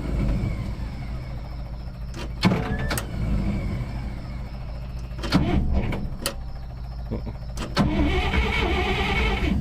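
Starter cranking the 1959 Dodge D300's 318 V8 over in several bursts without the engine catching; the ignition key is off, so it cannot fire.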